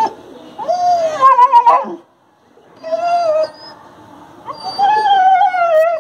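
Dog crying in pain from an injury, said to be a broken bone: three long, wavering, whining howls. The last and longest runs about a second and a half and falls slightly in pitch.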